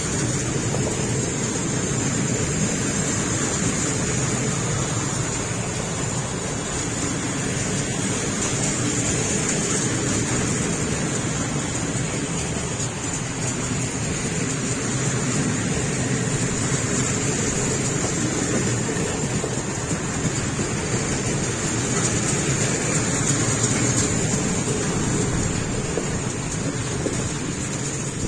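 A long freight train of open coal wagons rolling past: a steady rumble of steel wheels on the rails, with a high hiss running through it.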